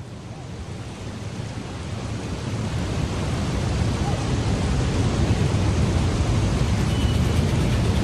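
Rushing water of a waterfall, a steady roar of noise that swells up over the first four seconds or so and then holds steady.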